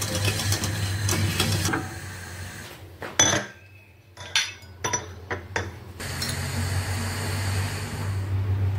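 Metal utensil stirring pudding in a stainless steel saucepan, then a few sharp clinks of metal against the pot, the loudest about three seconds in, over a steady low hum.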